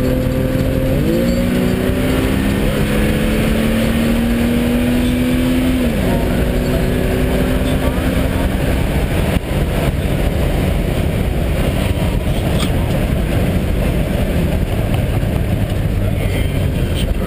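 Jaguar's engine heard from inside the cabin while racing, its pitch climbing slowly as it pulls, then dropping sharply about six seconds in as it comes off the throttle; after that a steady roar of engine, wind and road noise.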